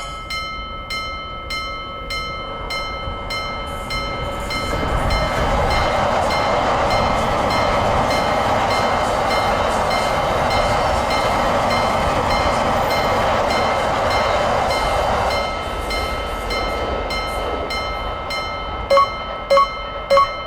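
Japanese railroad crossing alarm ringing with an even, rapid ding of about three strikes a second. A train passes through it, a steady rushing noise that swells about four seconds in and fades after about fifteen. Near the end, short high pitched notes start at about two a second.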